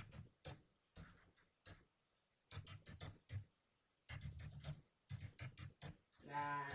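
Computer keyboard typing in short bursts of keystrokes separated by pauses.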